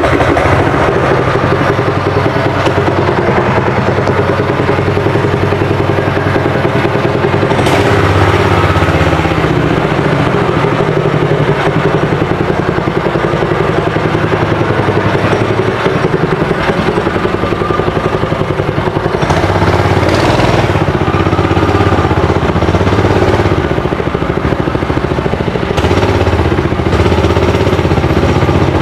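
Honda GX160 single-cylinder four-stroke engine running steadily, with its revs rising briefly a few times.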